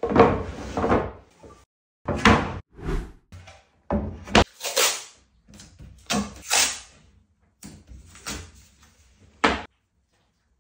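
Workshop handling noise from a white cabinet panel being slid on the workbench and masking tape being pulled off its roll and pressed down. It comes as about ten short, irregular scraping bursts, the longest at the start and the last one ending sharply.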